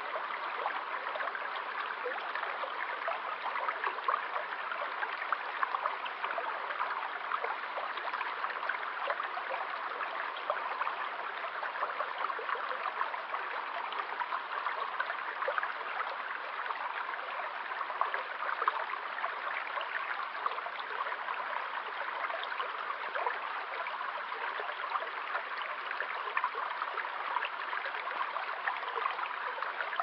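Narrow forest stream flowing steadily over a shallow bed: an even rush of water speckled with many tiny splashes.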